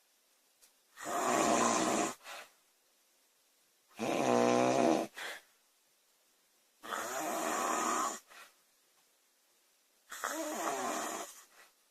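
A woman snoring loudly: four snores about three seconds apart, each lasting about a second. The second snore is a steady low buzz.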